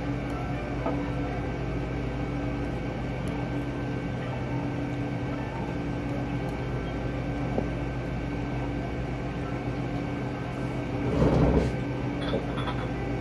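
Steady indoor room tone of a small restaurant: a constant machine hum with several held tones, like ventilation or refrigeration. About eleven seconds in there is a brief louder sound.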